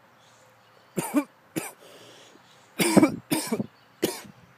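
A man coughing, a run of short coughs in several bursts, the loudest about three seconds in.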